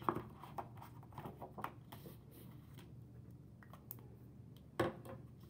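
Light handling sounds of a marker and laminated worksheet on a table: a run of soft clicks, taps and sliding rustles, thinning out after a couple of seconds, with one sharper tap near the end.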